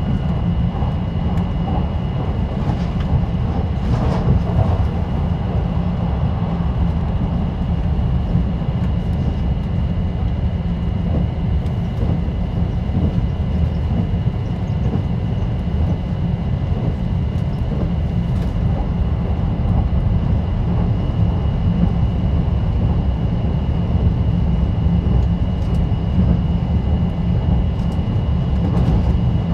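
A train running at speed, heard from inside near the front cab: a steady rumble of wheels on rail and running gear, with a faint steady high tone over it.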